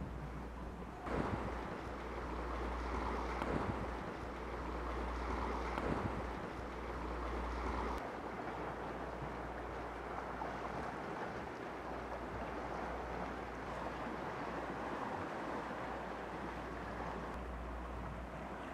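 Sea waves washing against a rocky shore, the surf swelling every two to three seconds in the first half, with wind rumbling on the microphone.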